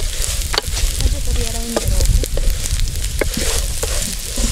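Rice frying with chopped carrots and green beans in a metal pot over a wood fire, sizzling as it is stirred with a wooden spoon that scrapes and knocks against the pot several times. The rice is being fried dry, before the water goes in.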